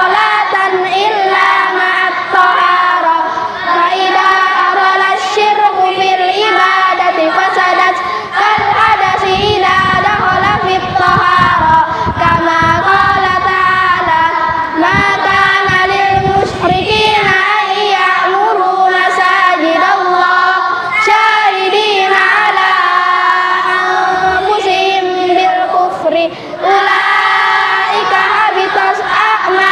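A group of children, boys and girls together, chanting a religious text in unison to a sung melody, without pause.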